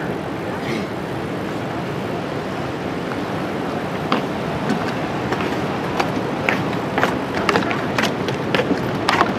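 Steady rushing noise of ocean surf and wind at a fishing pier, with a run of sharp clicks and taps through the second half.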